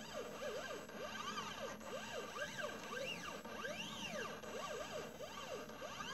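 Stepper motors of a DIY mini CNC laser engraver whining as the laser head moves. Their pitch rises and falls in quick arcs, over and over, as the motors speed up and slow down along the curves.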